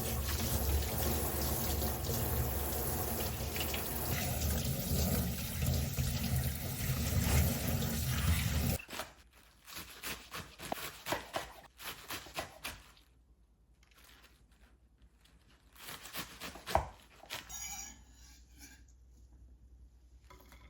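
Kitchen tap running water into a sink, a steady rush, shut off suddenly about nine seconds in. Scattered light clicks and knocks follow.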